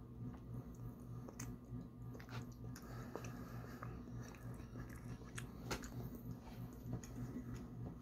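Close-up chewing of taro fudge: soft mouth clicks and smacks at irregular moments, over a steady low hum.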